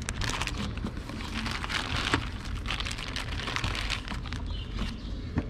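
Packaging rustling and crinkling with many small irregular crackles as it is opened and handled, over a low steady hum.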